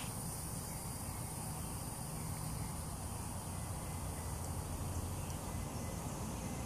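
Steady outdoor background noise: a low rumble under a faint high hiss, with no distinct sounds standing out.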